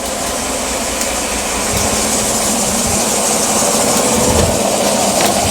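Chevrolet Silverado's 5.3 V8 idling steadily with a cylinder misfire.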